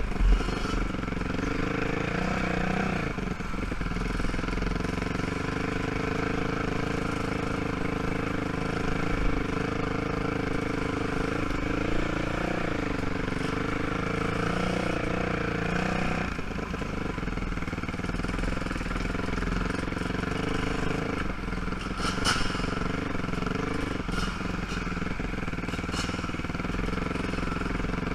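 ATV (quad) engine running at low trail speed, its pitch rising and falling with the throttle and dropping lower partway through. A few sharp knocks are heard about three quarters of the way in.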